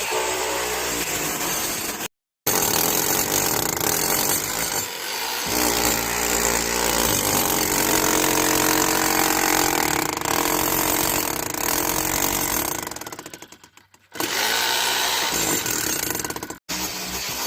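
A power tool working on concrete, running loud and continuous across several spliced clips.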